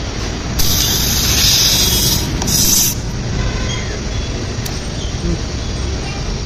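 Air hissing out of a tubeless tyre's puncture hole for about two seconds, with a short break, as the rasp tool is pulled from the tread and the plug tool goes in. A steady low traffic rumble runs underneath.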